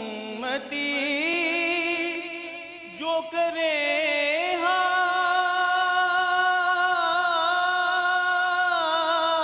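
A male naat reciter singing a devotional naat into a microphone. The first half is ornamented, wavering runs with a brief break about three seconds in, then he holds one long steady note through most of the second half.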